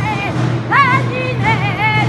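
A saeta, the flamenco-style Holy Week devotional song, sung by a solo woman's voice. One phrase falls away at the start, and after a short breath a new phrase begins about three-quarters of a second in, with winding ornamented turns and a wavering held note.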